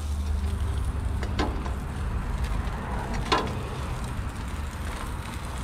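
A low steady rumble underneath two sharp metal clicks of grill tongs against the griddle pan, one a little over a second in and one past the three-second mark.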